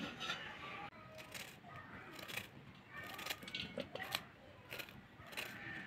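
Kitchen knife cutting fresh cauliflower florets by hand over a steel plate: a string of faint, short, crisp cuts through the stalks.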